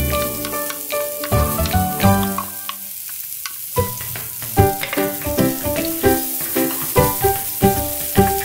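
Chopped chilies and garlic sizzling in hot oil in a frying pan, under background music of short melodic notes. The music drops out for about a second around three seconds in, leaving the sizzle on its own.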